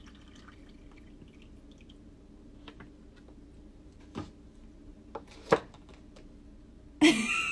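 Faint dripping and trickling of water being drained out of a bowl, followed by a few sharp clicks and knocks as the bowl is handled and set down. A short, louder burst of voice comes at the very end.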